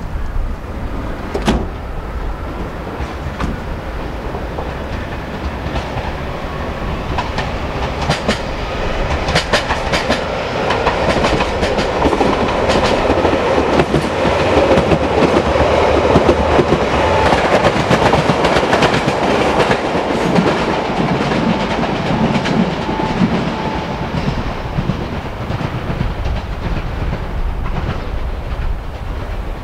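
JR Hokkaido 733 series electric multiple unit, six cars, running past at low speed. Its wheels click over rail joints and points. The sound swells to its loudest as the cars go by, about halfway through, then fades as the train pulls away.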